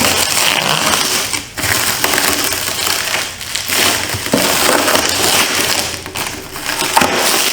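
Packing material rustling as a barrel of motorcycle parts is unpacked by hand. It is steady and noisy, with a few short lulls.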